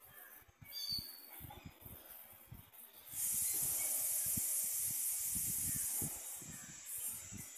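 Wind buffeting the microphone in uneven gusts, with a short bird chirp about a second in. About three seconds in, a loud steady high-pitched hiss starts suddenly, lasts about three seconds, then eases.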